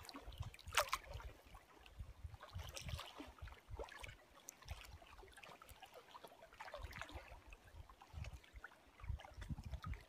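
Small lake waves lapping and splashing, with short splashes about a second in and again around three and seven seconds. Wind buffets the microphone in low gusts, strongest near the end.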